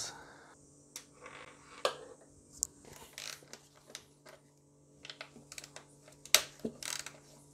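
Scattered light clicks and taps of a ratchet and long socket extension working on engine bolts, metal on metal, irregular rather than a steady ratcheting rhythm, with a sharper knock about six and a half seconds in.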